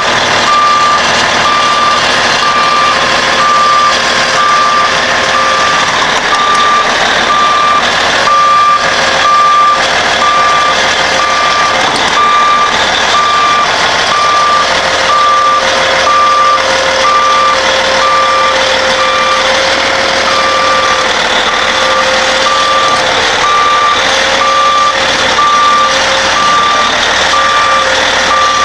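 Heavy diesel machinery running loudly, with a backup alarm beeping steadily at an even pace.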